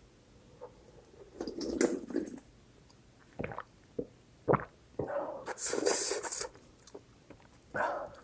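Close-up eating sounds of spicy instant noodles: a few short noisy slurps and mouth sounds with several sharp clicks in between, and one longer, louder slurp around the middle.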